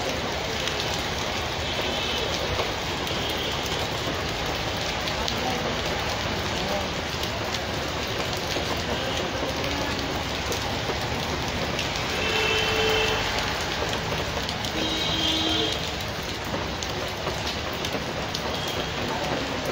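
Heavy rain falling on a wet street and puddles, a steady hiss that swells a little about two-thirds of the way through.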